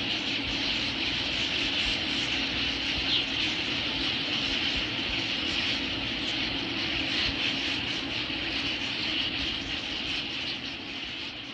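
A large flock of birds calling all at once, a dense continuous din with no single call standing out, easing off slightly near the end.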